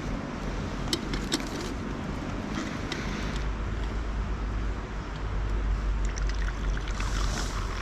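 Wind buffeting the microphone as a steady low rumble, with a few sharp clicks between one and three seconds in.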